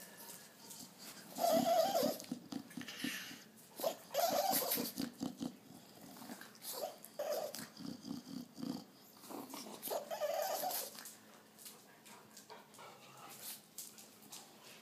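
Dog growling in several short rough bursts, a warning to other dogs to back off; the loudest come a couple of seconds in, around four seconds and around ten seconds.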